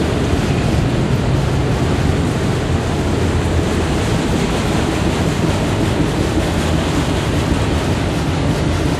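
Freight train of autorack cars rolling past, a steady rumble of steel wheels on rail.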